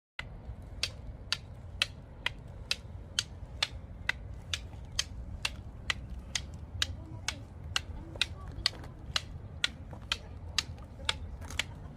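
Arnis sticks clacking together in a steady Sinawali rhythm, about two sharp strikes a second, over a low rumble of wind on the microphone.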